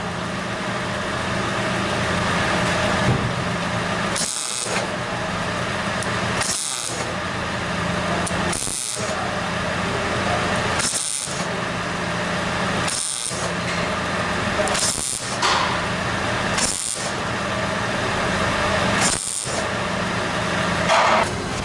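Exhaust of a 2000 Honda Odyssey's 3.5-litre V6 idling as a steady low hum and rush, heard from beneath the car, running quietly on its freshly patch-welded muffler and catalytic converter joint while the welds are checked for leaks. The sound briefly dips about every two seconds.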